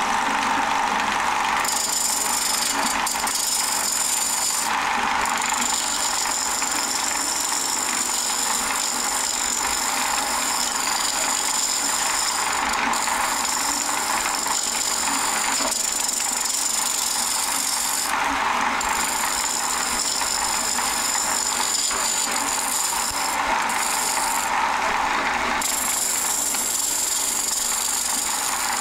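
Wood lathe spinning a glued-up stacked-bowl blank while a gouge cuts into its face: a steady shearing hiss over the lathe's running. The cut lifts off briefly a few times.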